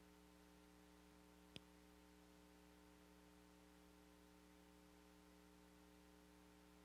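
Near silence: a steady low electrical hum, with one faint click about one and a half seconds in.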